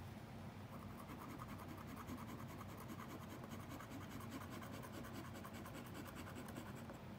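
A small hand-held drawing tool scratching on paper in rapid short strokes, working over a graphite and charcoal drawing. The strokes are faint and come many times a second.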